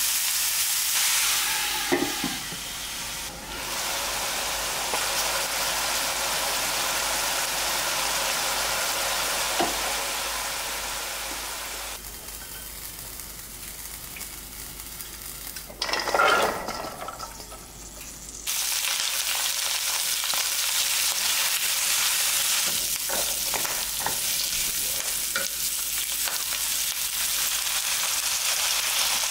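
Food sizzling in an oiled wok while a wooden spoon stirs it: first shimeji mushrooms with carrot and green onion, then garlic scapes. Midway the sizzle drops to a quieter hiss as oil heats in the empty pan. After a short loud burst, the sizzle comes back louder and steady, with the spoon scraping.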